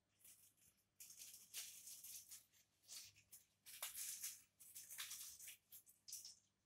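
Faint dry rustling and rattling in irregular short bursts, starting about a second in and recurring several times.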